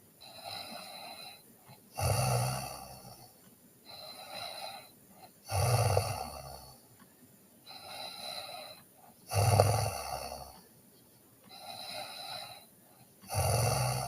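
A sleeping person snoring in a steady rhythm: four loud snores, each about a second long and roughly four seconds apart, with softer breaths between them.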